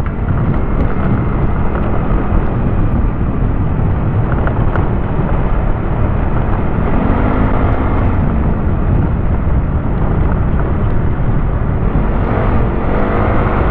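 Steady wind rush and rumble on the microphone of a moving motorcycle, with the engine note faintly rising and falling now and then.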